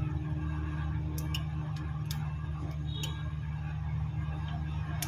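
Small, irregular plastic clicks and ticks as a phone's display assembly is worked loose from its frame with a thin plastic film, over a steady low electrical hum.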